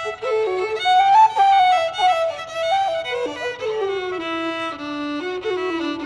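Fiddle and wooden flute playing a traditional tune together, two melody lines in step; partway through, the lower line steps down through a run of notes and climbs again near the end.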